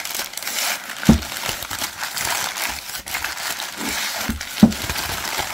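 Newspaper crinkling and rustling as it is pulled open from around a rock lump, with a few dull knocks, the loudest near the end.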